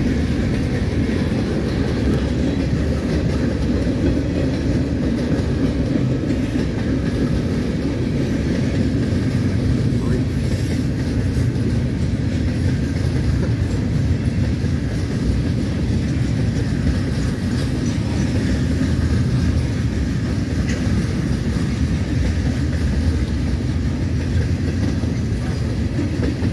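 Freight cars of a mixed manifest train rolling past: a steady rumble of steel wheels on the rails.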